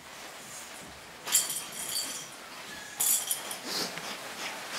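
Pug puppies scrambling through a deep bed of shredded paper, the paper rustling in two loud bursts, about a second in and again about three seconds in, with quieter rustling between.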